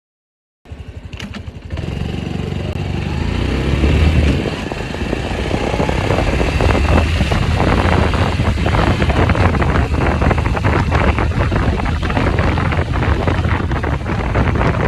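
Honda Cross Cub's single-cylinder four-stroke engine running, with a dense, rapid ticking rattle over a low rumble. It starts abruptly just under a second in and grows louder about four seconds in.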